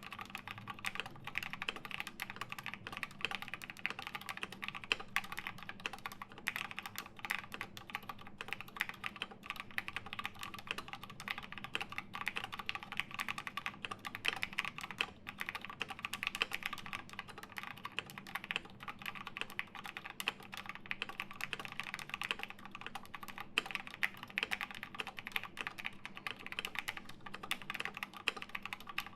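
Continuous, fast typing on a custom MC-76k "Fatboy" mechanical keyboard with an aluminium plate, lubed and filmed Gateron Black KS-3 linear switches, and MT3 Susuwatari keycaps, with the keystrokes coming in a dense, steady stream.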